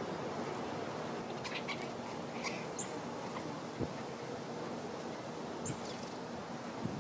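Outdoor background hiss with a few short, high chirps from small birds, one about three seconds in and one near six seconds, and a soft thump about four seconds in.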